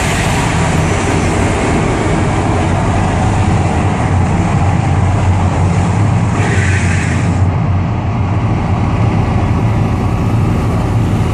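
Loud, steady low rumble, with a brief hissing swell about six and a half seconds in.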